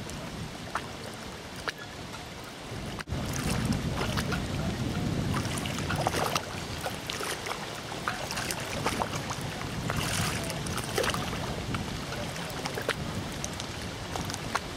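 Choppy lake water lapping and slapping against a concrete harbour wall, with wind buffeting the microphone as a low rumble and scattered short clicks and splashes throughout. A brief dropout about three seconds in.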